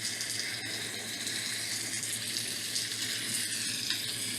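Recorded rain sounds playing back from a tablet: a steady hiss of heavy rain, with a low steady hum underneath.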